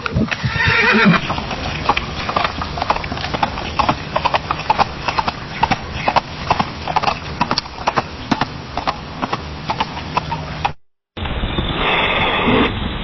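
A horse whinnies near the start. Then comes a long run of clip-clopping hoofbeats, a few strikes a second. After a brief cut to silence, another horse neighs near the end.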